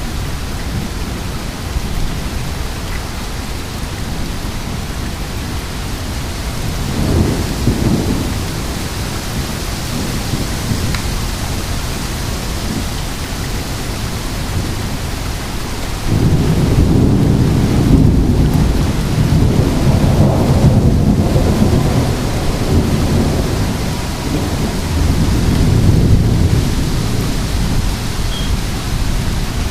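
Heavy rain falling steadily, with a short rumble of thunder about a quarter of the way in. Just past halfway a loud, long roll of thunder starts suddenly and rumbles on for about ten seconds.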